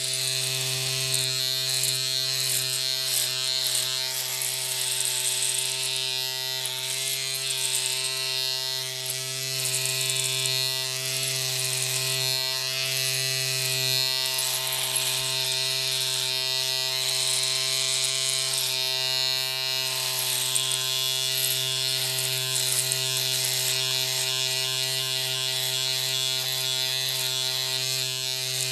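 A small electric motor buzzing steadily at one constant pitch, with a high hiss over it.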